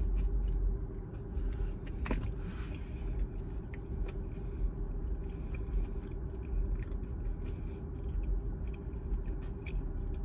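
Close-miked chewing of a fried fish fillet, with scattered small crunches and clicks over a steady low hum inside the car.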